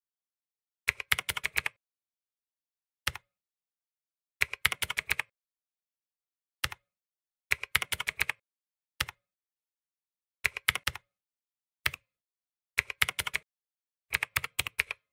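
Keyboard typing clicks: about six quick bursts of keystrokes, with a single click between bursts and dead silence in the gaps, as a typing sound effect.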